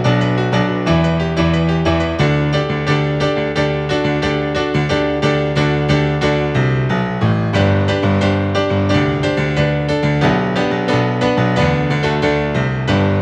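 Piano playing a postlude: a steady stream of evenly spaced notes over held bass chords.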